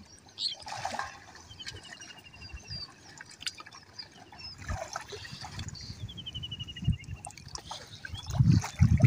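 Shallow water splashing and trickling as people wade and handle a fishing net, turning into heavier sloshing about eight seconds in as a man crawls low through the water. A bird trills twice in the background.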